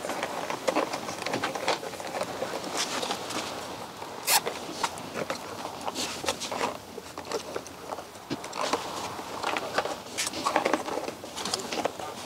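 Hands working wiring and plastic cable ties: rustling of cables and scattered small clicks as the loom is bundled and tied, with one sharper click about four seconds in.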